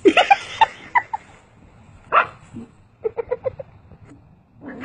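A dog barking and yipping in short bursts, with a quick run of about six yips about three seconds in.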